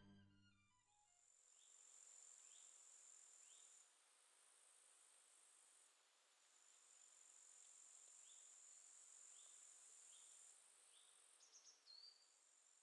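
Faint, steady high-pitched insect chirring in a forest, with short rising chirps about once a second and a brief run of higher chirps near the end. The last chord of a string quartet dies away in the first second.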